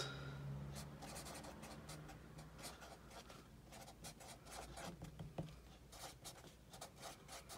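Sharpie felt-tip marker writing on a paper notepad: a run of quick, irregular pen strokes, faint.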